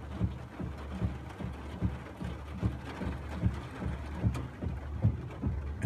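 Idling vehicle engine heard from inside the cab: a steady low hum with irregular light knocks about three a second.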